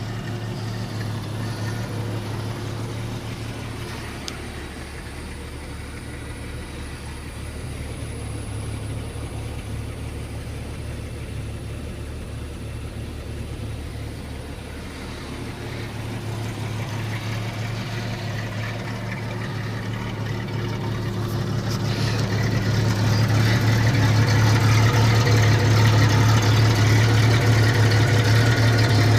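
Jeep Cherokee XJ engine running with a steady low drone, growing louder about three-quarters of the way through.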